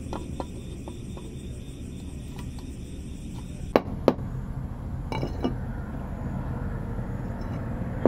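Sharp metal-on-metal taps of a hammer on a steel punch, knocking a 6204 bearing off a Yamaha Aerox's primary drive gear shaft. There are faint light ticks at first, then two sharp taps about four seconds in and a ringing clink about a second later.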